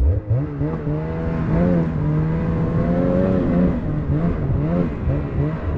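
Snowmobile engine revving up sharply and running at high revs under load as it tows a disabled snowmobile uphill on a rope, the revs rising and dipping repeatedly in the second half.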